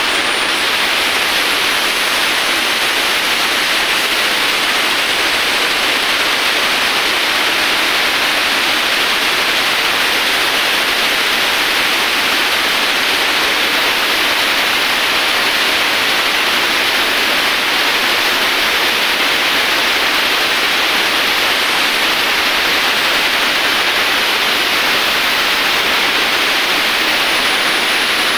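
Steady, loud hiss of background noise, even and unchanging, with no rhythm, tones or knocks.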